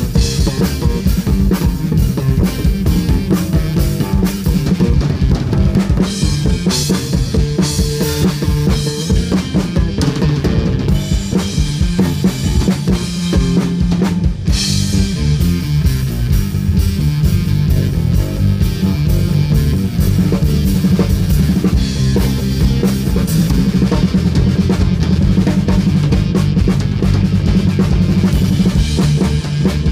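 A live rock band playing a blues-rock number, with drum kit, electric guitars and bass. The kick, snare and bass notes are loudest.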